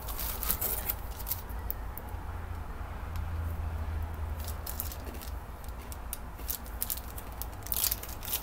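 Cardboard box and small plastic packaging being handled and crinkled, a string of irregular sharp crackles and rustles over a steady low hum.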